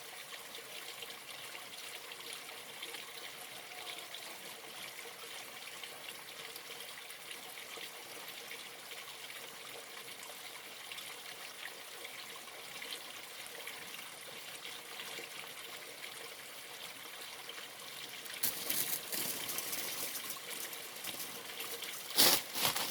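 Stream water running steadily in a shallow trickle. Near the end, louder rustling noise comes in, with a sharp loud burst just before the end.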